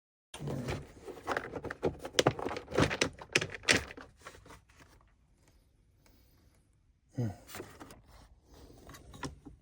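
Handling noise from a battery jump starter's casing being opened: a quick run of sharp clicks, knocks and rattles for about four seconds, then a pause and another short clatter near the end.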